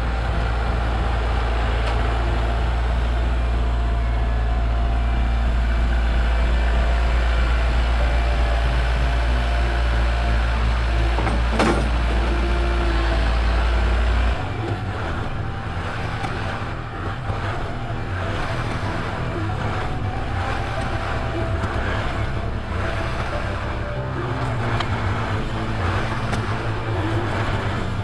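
Kubota L4701 tractor's diesel engine running steadily as it moves snow with the front loader. About halfway through the engine note changes abruptly and becomes a little quieter, and there is a single sharp click shortly before that.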